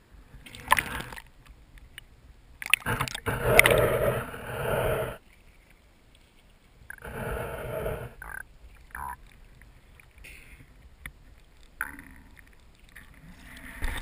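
Water sloshing, splashing and gurgling around a camera held at the river surface as it dips under and comes back up, in several bursts with quiet gaps between; the longest and loudest burst comes about three to five seconds in.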